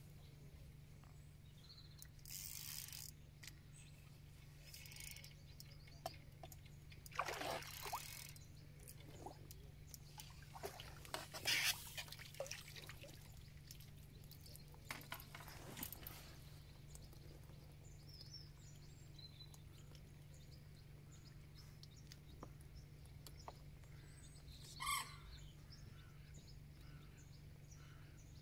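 A hooked mirror carp splashing at the surface as it is played in and netted: a handful of short, quiet splashes, with water running off the landing net as it comes out.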